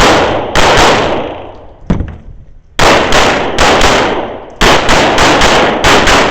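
Pistol shots fired rapidly in strings of two to four, about a dozen in all, each followed by an echoing decay; a lighter crack comes about two seconds in.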